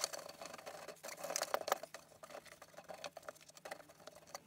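A cloth rubbing over the plastic cover of an old overhead projector, with light clicks and knocks from hands handling the housing.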